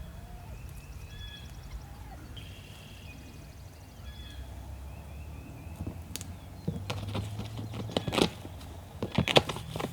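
Short, high whistled bird calls in the woods, then a run of sharp clicks and rustles from about six seconds in, loudest near the end.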